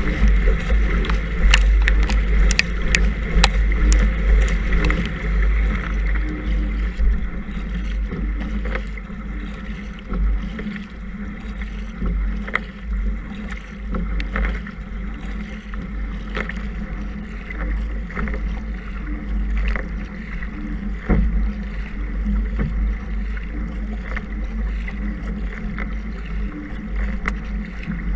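A kayak being paddled, heard from a camera on the bow: wind buffets the microphone, water rushes along the hull, and the paddle blades make short splashes at each stroke. The strokes come quicker in the first several seconds, then slow.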